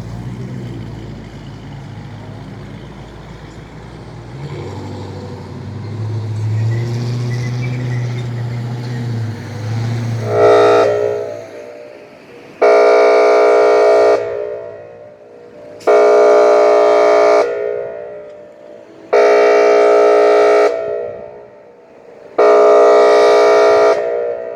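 Outdoor tornado warning siren sounding its air-horn tone: a short blast, then four loud, steady horn blasts of about a second and a half each, evenly spaced about three seconds apart. A low rumble swells beneath it before the blasts begin.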